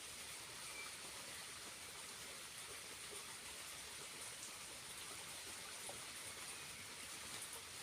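Small waterfall: a steady, faint hiss of falling water, with a few light ticks of drops.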